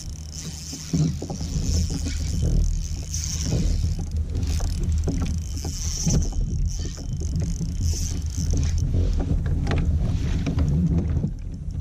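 Wind rumbling on the microphone over water moving around a plastic fishing kayak, with scattered light knocks from gear being handled aboard and a high hiss that swells and fades.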